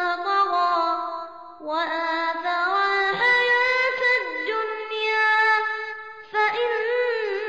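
A child's voice reciting the Quran in melodic murottal style, drawing out long vowels on a wavering pitch. It breaks off briefly for breath about one and a half seconds in and again near the six-second mark.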